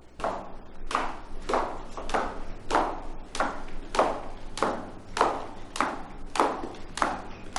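Footsteps of hard-soled shoes on marble stairs and floor, a steady walking pace of about one step every 0.6 seconds.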